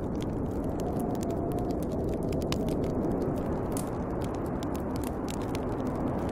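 Snowstorm wind blowing steadily, with the irregular crackles and pops of a burning wood fire over it.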